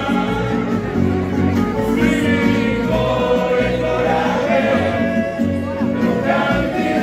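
A group of people singing together, with instrumental accompaniment keeping a regular, pulsing beat underneath.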